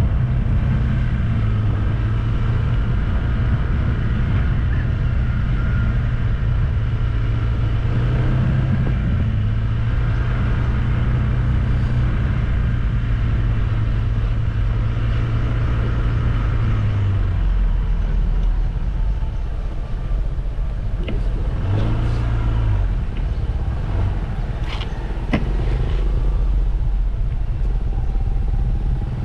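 Motor vehicle engine running steadily, its pitch dropping lower about two-thirds of the way through, with a brief rise and a few sharp clicks near the end.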